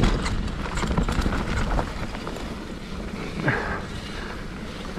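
Downhill mountain bike rolling fast over a muddy dirt trail: tyres rumbling on wet dirt, with irregular clatter and knocks from the bike over bumps, and a brief falling squeal about three and a half seconds in.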